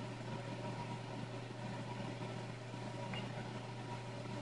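Steady low hum with a constant hiss over it, unchanging throughout: room tone with no distinct event.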